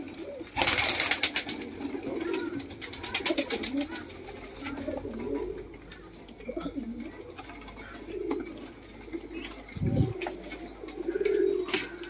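Domestic pigeons cooing repeatedly in a loft, low humming calls, with short rustling noise about a second in and again around three seconds, and a dull thump near the end.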